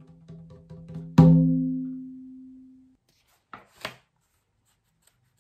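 A drum struck once with a sharp attack, its low tone ringing and fading away over about two seconds, followed by two light knocks.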